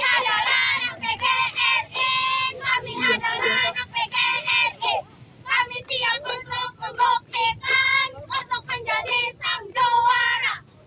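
A squad of schoolgirls chanting a team yell in unison, in loud sung phrases with a short break about halfway through.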